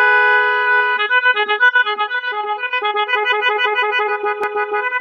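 Policeman 12-volt electronic multi-tone LED horn sounding: a steady two-note chord for about a second, then switching rapidly between notes in a tune-like pattern, with a single click near the end.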